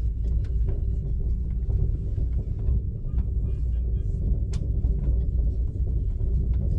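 Steady low rumble and hum of a vehicle in motion, heard from inside, with a few faint clicks.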